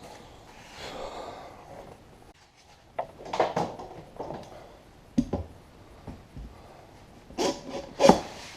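Irregular knocks, scrapes and rubbing from hand tools working a mower tire on its rim, with the loudest knock near the end.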